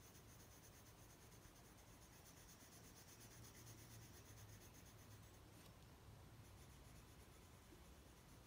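Near silence with the faint, steady scratching of a black colored pencil shading on paper.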